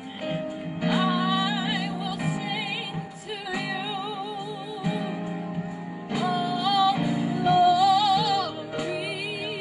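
A woman singing a gospel solo into a microphone, in phrases with long held notes and wide vibrato, over a steady instrumental backing of sustained chords.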